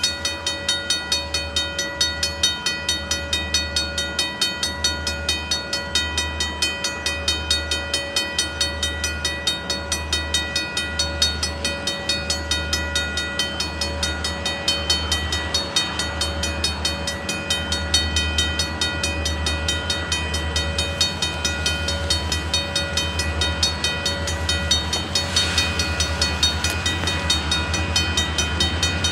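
Three EMD diesel locomotives, led by an SD40-2, approaching under power: a steady engine drone with a low, pulsing throb and a steady whine over it, growing a little louder toward the end.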